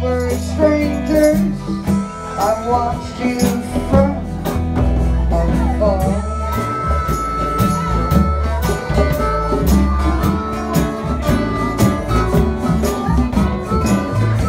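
Country-style music with guitar and a steady beat, with a wavering lead melody line in the first few seconds.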